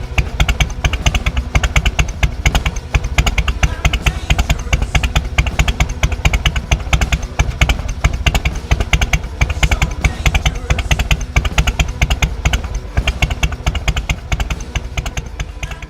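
Harley-Davidson Softail Night Train's Twin Cam 88 V-twin running steadily through an aftermarket BSL exhaust, a fast even train of loud exhaust pulses.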